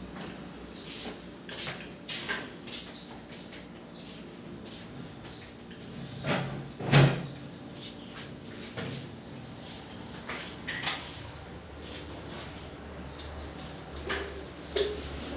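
Scattered knocks, taps and clatters of kitchen work: a knife cutting vegetables over a steel pot and pieces dropping into it, with one louder knock about seven seconds in.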